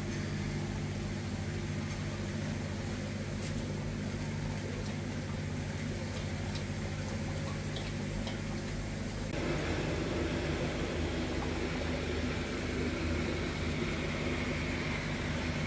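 Aquarium power filter running with a steady low hum while its air intake sends bubbles through the water. About nine seconds in, the sound turns louder and hissier.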